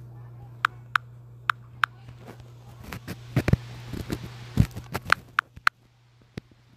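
Fingers tapping on a phone touchscreen while drawing and undoing strokes: a scattered series of short, sharp clicks, over a steady low hum.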